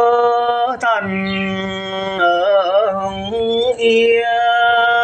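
Mường folk singing: a voice holding long, drawn-out notes that waver and slide from pitch to pitch, over a steady held accompaniment tone.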